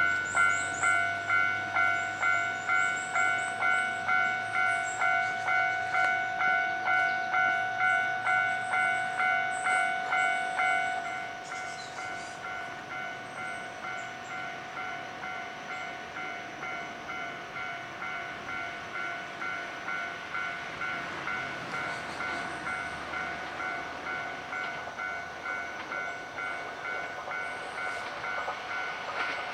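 Japanese level-crossing warning bell ringing its electronic ding-ding, about two strokes a second. About eleven seconds in it drops to a quieter level and keeps ringing, while the rumble of an approaching train grows faintly toward the end.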